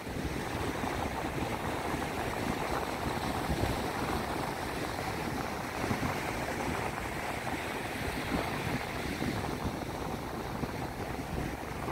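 Wind buffeting the microphone in uneven gusts over the steady wash of sea surf on a beach.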